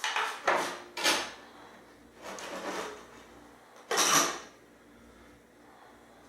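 Bench parts being handled and shifted during assembly: a run of about five short scrapes and knocks, one drawn-out scrape a little past two seconds in, the last a sharp one about four seconds in.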